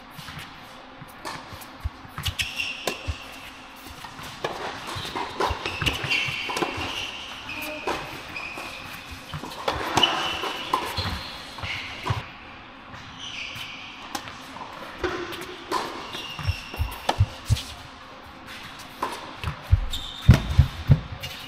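Tennis rally on an indoor hard court: rackets striking the ball again and again, with short high squeaks from sneakers and feet scuffing as the players move. It echoes in the large hall, and a cluster of heavy thuds comes near the end.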